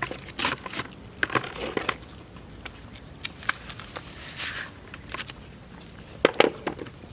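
Scattered light knocks and scrapes from handling cans of sand and cement, with two sharper knocks about six seconds in.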